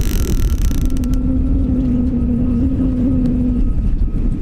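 Baitcasting fishing reel whirring steadily for nearly three seconds with a fish on the line, starting about a second in. Low wind rumble on the microphone throughout.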